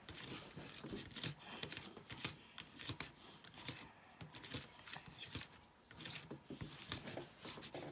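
Small plastic spoon stirring candy mix in a plastic tray compartment, scraping and tapping against the sides in a run of quick, irregular light clicks and scrapes.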